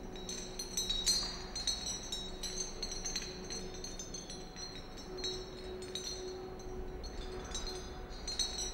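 Crystal chandelier pendants clinking against each other as they are handled, a scatter of small, high glassy chinks, busiest in the first few seconds.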